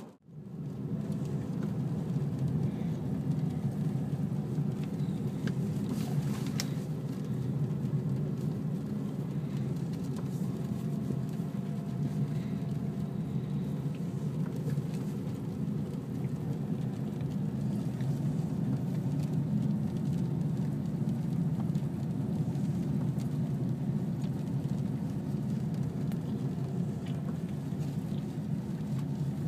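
Steady rain falling, an even low rush with a few faint ticks.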